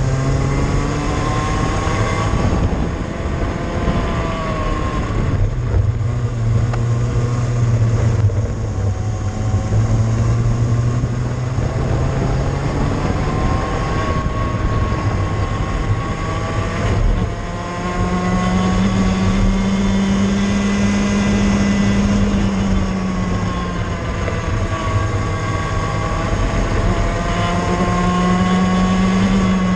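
Cadet kart engine running at racing speed, heard from the kart itself: the revs climb slowly along each straight and drop away as it slows for the corners, several times over.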